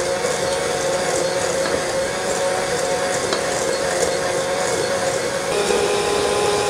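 Electric hand mixer running steadily, its beaters churning a butter, sugar and egg cookie batter at a low speed so the egg is mixed in rather than whipped. The motor whine steps down to a lower pitch about five and a half seconds in.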